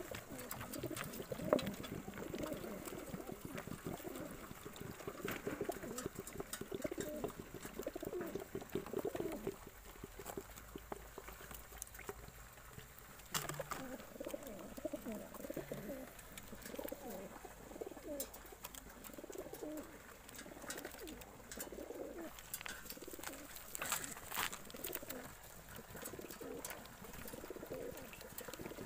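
Racing pigeons cooing in their transport crates, a steady run of overlapping low warbling coos, with a few sharp clicks here and there.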